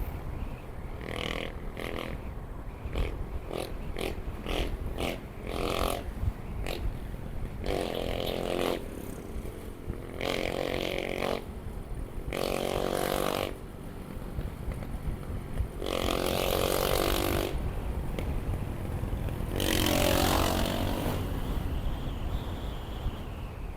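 Motorcycle engine running on the road under a low steady rumble of wind on the microphone. A run of short clicks comes in the first few seconds, and the engine note swells several times for a second or two at a time.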